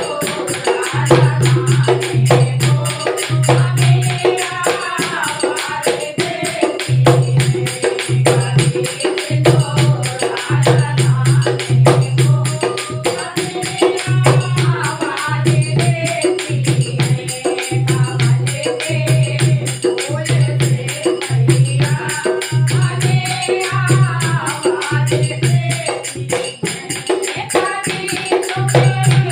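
Hindi devotional bhajan: a voice singing a melody over steady percussion and a pulsing low bass line.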